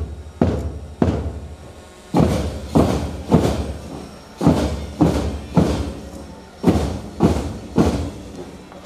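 Drums beating a slow march rhythm: three heavy strokes about half a second apart, a short rest, then three more, each stroke ringing on briefly.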